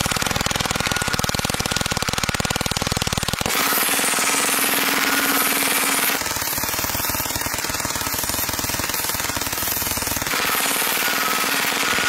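A .22 LR belt-fed machine gun firing on full auto, a continuous rapid rattle of shots. About three and a half seconds in, the sound changes as steel targets are hit.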